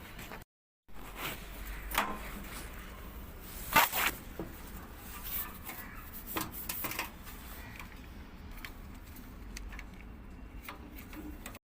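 Scattered light clicks and knocks of parts and tools being handled during repair work, the sharpest a little before four seconds in, over a faint low hum; the sound drops out to silence twice, briefly, at edit cuts.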